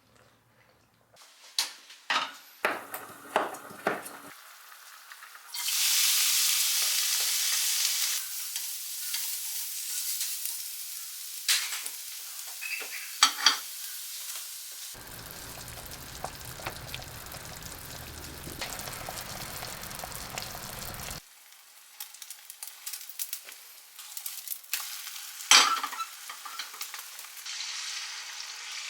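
Food sizzling and frying in a hot pan while being stirred, with clicks and taps of a utensil against the pan. The sizzle starts a few seconds in and is loudest just after that, then settles to a steady frying hiss, with a sharp knock near the end.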